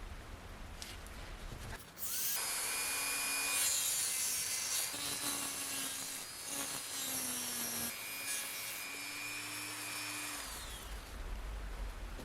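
Small electric rotary tool running at high speed for about eight seconds, its pitch wavering slightly as it works, then winding down with a falling whine near the end.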